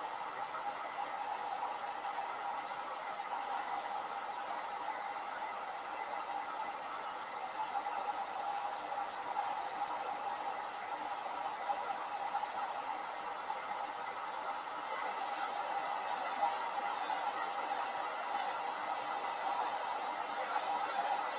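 Handheld hair dryer running steadily on a canvas to dry wet black paint: a rush of air with a steady whine beneath it. The hiss of the air gets a little stronger about fifteen seconds in.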